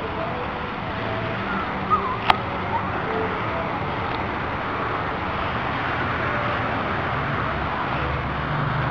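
Steady outdoor background noise, an even wash with no clear single source, with one sharp click a little over two seconds in.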